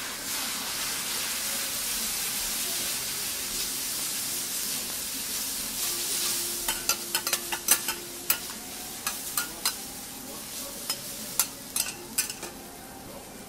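Noodles and cabbage sizzling on a hot steel griddle as two metal spatulas toss and chop them. The sizzle is strongest for the first half, then dies down while quick sharp clicks and scrapes of the spatulas on the plate come thick and fast.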